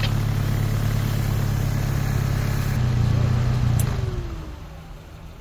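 An off-road vehicle's engine running steadily with a low hum, then winding down and dying away about four seconds in.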